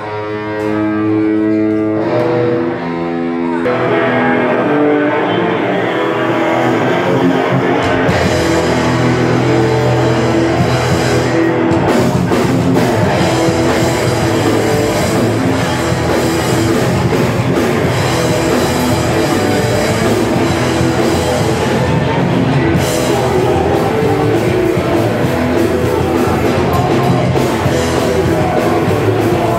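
Hardcore band playing live through a PA at a small club gig: a lone guitar picks out notes for the first few seconds, then the bass and drums come in with the full band about eight seconds in, loud and continuous.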